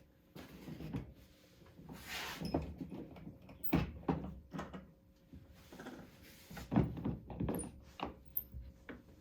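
Wooden shelf pieces being moved and set down on a workbench: scattered knocks and thunks, with a brief scraping slide about two seconds in.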